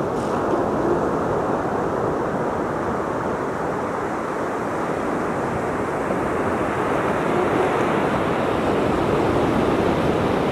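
Steady rushing noise of ocean surf breaking on the beach, swelling slightly in the second half.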